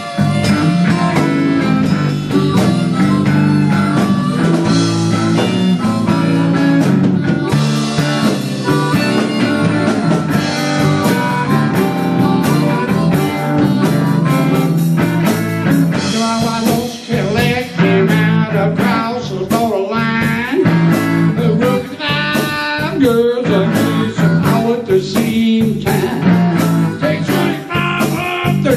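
Live blues band playing loudly: electric guitar, electric bass and drums, with a lead line with bending notes from the front man at the hand-held microphone.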